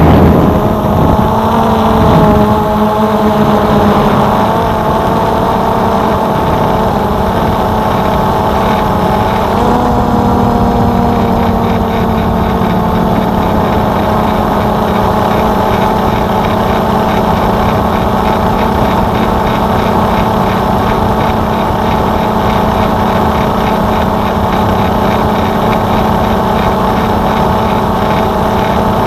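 A drone's motors and propellers give a steady, loud, whining hum. The pitch shifts a couple of seconds in and again about ten seconds in, then holds steady.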